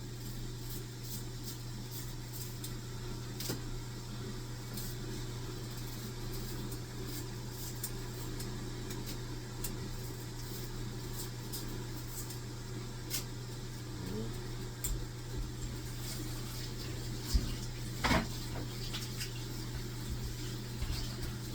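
Scattered light ticks and scrapes of a kitchen knife peeling the skin off a yellow yam, over a steady low hum, with a couple of sharper knocks near the end.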